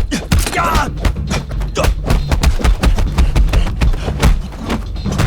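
Film fight-scene sound effects: a rapid, irregular string of punch and kick impacts, a few a second, with a pained cry about half a second in, over a low music score.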